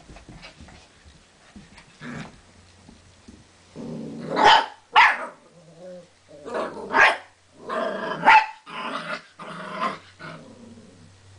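Pumi puppies barking in play: a quick run of sharp barks begins about four seconds in, after a few seconds of faint scuffling.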